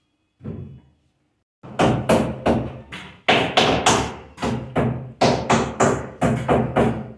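Hammer driving nails into a wooden kitchen cupboard being fitted: one soft knock, then a steady run of sharp blows about three a second, with a brief pause partway through.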